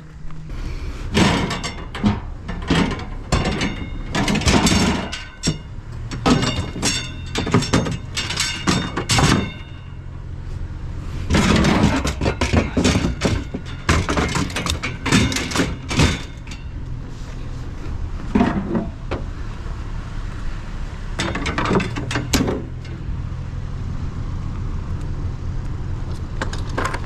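Scrap items being handled and loaded into a vehicle: a long run of knocks, clanks and thuds, thickest in the first half, over a steady low hum.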